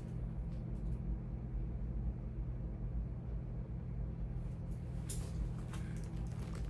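Steady low electrical hum, with a few light clicks, the clearest about five seconds in, as a charging cable's plug is handled and tried in a phone.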